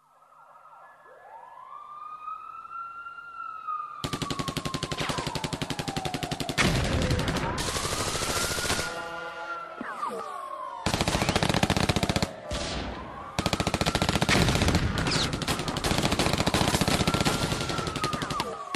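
A siren wailing, slowly rising and falling in pitch over several seconds. From about four seconds in it is joined by long bursts of rapid automatic gunfire, with a brief break near the middle.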